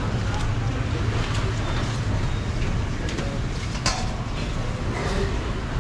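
Steady low rumble of background noise at a street food stall. Over it come a few light knocks and clinks of fruit being handled, the clearest about four seconds in.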